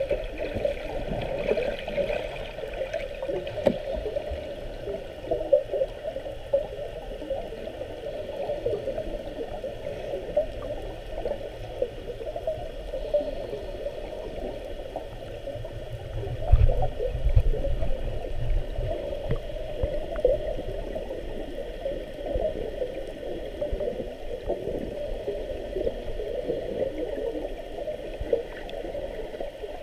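Underwater sound picked up by a submerged camera: a continuous muffled water noise with a fine crackle. A heavier low rumble comes about sixteen to eighteen seconds in and is the loudest part.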